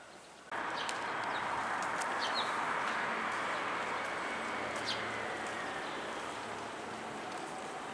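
Hankyu Senri Line electric train running past: a steady rushing rolling noise that starts abruptly about half a second in and fades slowly, with a few faint clicks over it.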